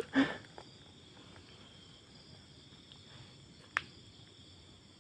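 Faint, steady chirring of night insects in several high, even bands, with a single sharp click a little under four seconds in.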